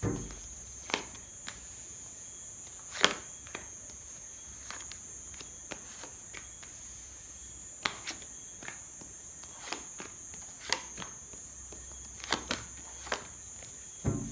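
Tarot cards being drawn and laid down on a table: scattered sharp snaps and taps at irregular intervals, a sharper one about three seconds in and a quick cluster near the end, over a steady faint high-pitched whine.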